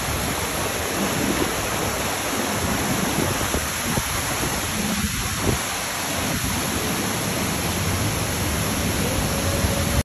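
Looking Glass Falls, a waterfall, and the water rushing over the rocks at its base: a steady, loud, even rush of falling water.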